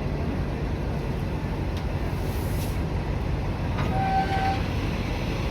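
Passenger train running, a steady low rumble, with a short high tone about four seconds in.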